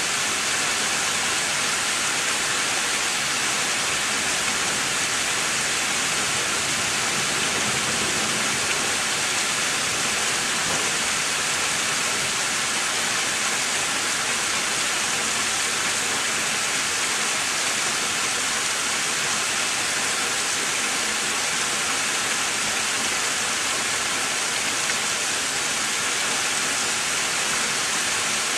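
Heavy thunderstorm rain pouring steadily, an even hiss with no claps of thunder.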